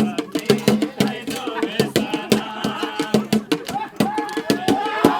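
Folk song sung by a group to a quick, steady beat of sharp percussion strikes.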